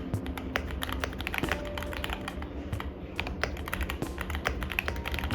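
A newly built mechanical keyboard being typed on for a sound test: a quick, irregular run of key presses, each a sharp clack.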